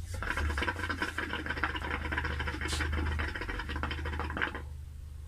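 Water bubbling in a homemade hookah built from a glass liquor bottle as a long draw is pulled through the hose. The bubbling goes on for about four and a half seconds, then stops.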